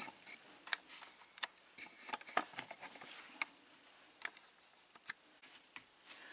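Small, irregular metal clicks and scrapes, about a dozen, as a tension wrench is worked into the bottom of a pin-tumbler cylinder lock's keyway.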